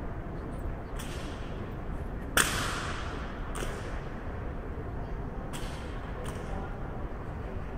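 Sharp cracks from a ceremonial honor guard's rifle-and-boot drill on a stone floor: about five strikes, the loudest about two and a half seconds in, each echoing briefly in the large hall.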